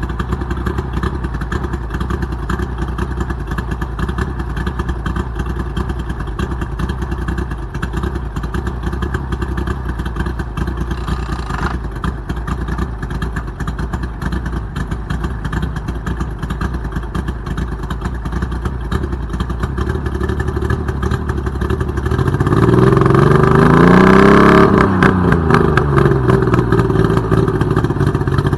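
Outboard motor running steadily, then revved up about three quarters of the way through and let back down to a lower speed.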